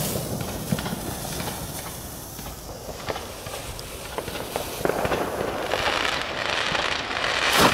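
Roman candle being lit: a faint fuse hiss that builds from about five seconds in, then the candle fires its first shot, suddenly loud, just before the end.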